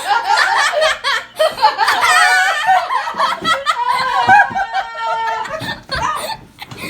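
Several people laughing loudly together, with one voice holding a long, high, drawn-out laugh or squeal about two-thirds of the way through.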